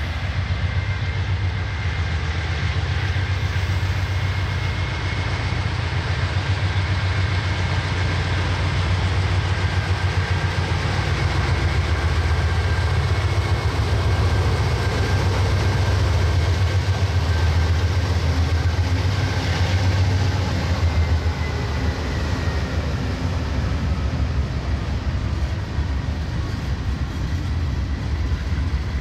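Norfolk Southern diesel locomotives hauling a freight train pass close by, their engines giving a deep steady rumble. The rumble eases about two-thirds of the way through as the freight cars roll past on the rails.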